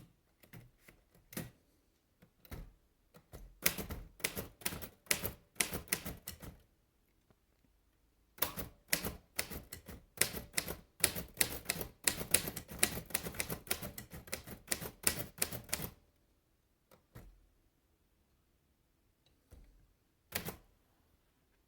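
Royal De Luxe Model A portable typewriter being typed on: sharp key strikes in two quick runs, with a few single strokes before and after them.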